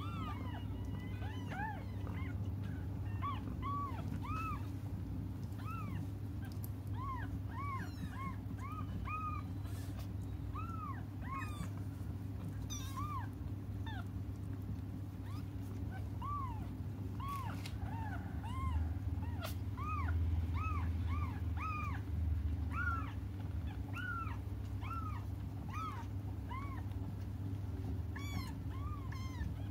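Newborn kittens mewing: many short, high cries that rise and fall, one or two a second, over a steady low hum.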